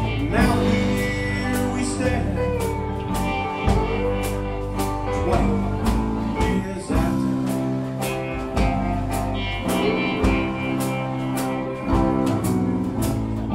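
Alt-country band playing live: electric guitars, acoustic guitar, bass guitar and a drum kit keeping a steady beat.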